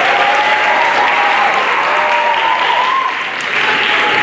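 Audience clapping loudly in a hall, with voices cheering and calling out over the clapping.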